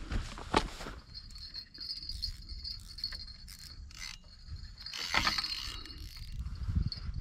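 Spinning reel being cranked while a hooked fish is played, a mechanical whirring with clicks. A steady high-pitched chirr runs behind it.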